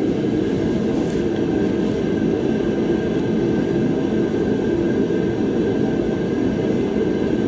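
Steady machine drone, like a running fan or air conditioner, unchanging throughout, with a faint constant high whine over it.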